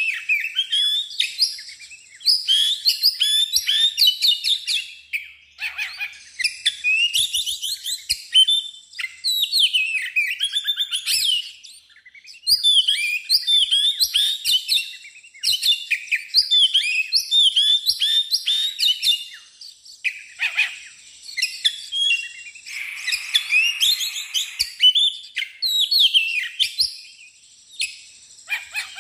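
Oriental magpie-robin in full song: rapid, varied whistled notes and trills in phrases of a few seconds with brief pauses between them, and a harsher, rasping passage about three-quarters of the way through.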